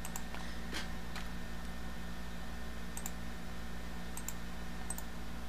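About half a dozen scattered clicks from working a computer, over a low steady hum.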